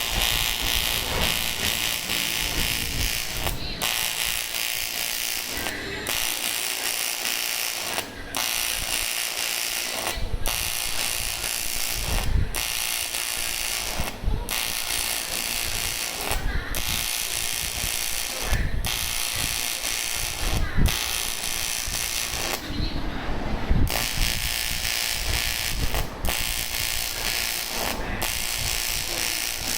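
AC TIG welding arc on aluminium, a steady crackling buzz that drops out briefly about every two seconds as the arc is broken and struck again.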